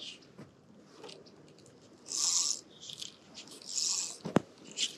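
Fly line swishing as the rod is cast and the line handled: two short hissing sweeps about a second and a half apart, then a sharp click near the end.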